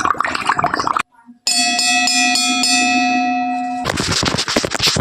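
A run of homemade sound effects. About a second of water gurgling comes first. After a short gap, a glass is struck about five times in quick succession and left ringing with a clear, bell-like tone. Near the end, water at a rolling boil bubbles and crackles.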